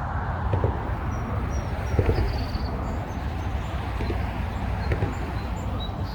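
Footsteps walking at an easy pace, a soft step about every second, over a steady low rumble, with a few faint high bird chirps.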